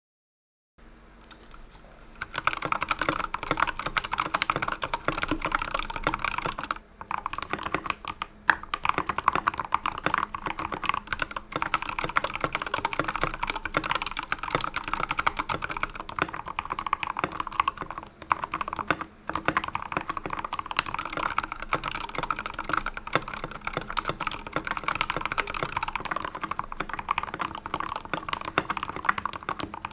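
Fast, continuous typing on a GK64XS mechanical keyboard with Tealios V2 linear switches and XDA-profile PBT keycaps, alternating between unlubed and lubed switches. The typing starts about two seconds in and breaks off briefly twice.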